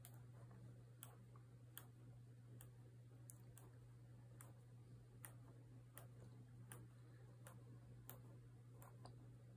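Near silence with faint, evenly spaced ticks, a little faster than one a second, over a low steady hum.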